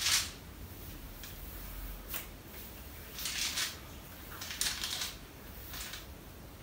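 Hands massaging a man's neck, scalp and ears: fingers rubbing through hair and over skin in short, crisp rustling strokes, the sharpest right at the start.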